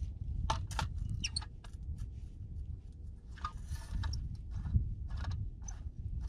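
Hand ice auger drilling a hole in lake ice: the blades crunch and scrape through the ice in short, irregular strokes over a steady low rumble.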